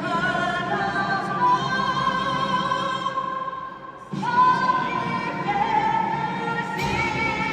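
A solo singer in operatic style singing long held notes with vibrato, a new phrase starting about four seconds in.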